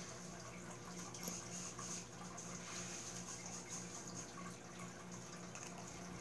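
Faint room tone: a steady low hum and a high hiss, with a few small, faint clicks of a metal tool touching the coils and deck of a rebuildable dripping atomizer.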